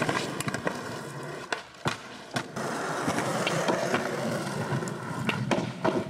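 Skateboard wheels rolling on rough concrete, with several sharp clacks of boards striking the ground, a cluster about a second and a half to two and a half seconds in and more near the end.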